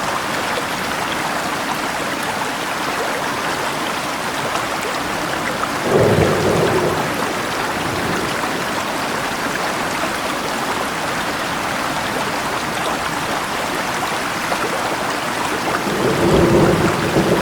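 Steady rain with river water running, and two short low rumbles of thunder, one about six seconds in and one near the end.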